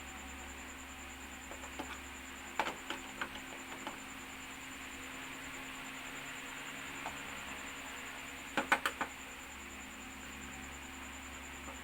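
Small sharp clicks and taps of a screwdriver and loose screws during TV disassembly: a few about two and a half to four seconds in, then a quick run of four near nine seconds, over a steady background hiss.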